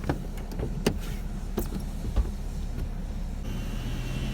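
A Camaro ZL1's V8 idling as a steady low rumble, with a few light clicks. A faint, steady high tone comes in about three seconds in.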